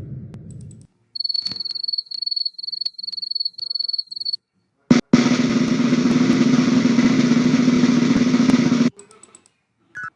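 The tail of a low rumble fades out, then crickets chirp in a run of short, high, pulsing trills for about three seconds. About five seconds in, a snare drum roll plays for about four seconds and stops abruptly.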